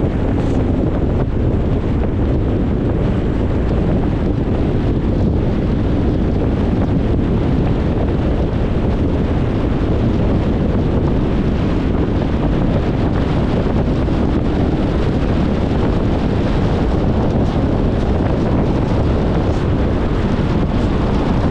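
Steady road noise of a car driving: an even rumble and hiss of tyres and wind, with no distinct events.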